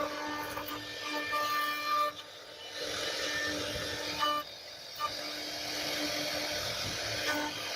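CNC router spindle running with a steady whine while the bit cuts into wood, the hissy cutting noise coming and going in passes of a second or two.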